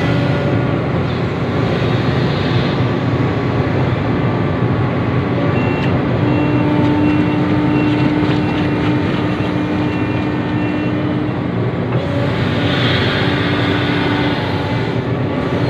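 Sumitomo SH350 excavator's diesel engine running steadily under work. From about six seconds in to about eleven, a high beep repeats about twice a second, like a travel or reversing alarm.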